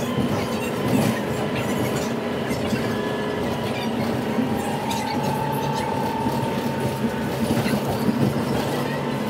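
Inside a moving bus: engine and road noise with a low steady drone and a thin high whine that glides slightly up in pitch about halfway through.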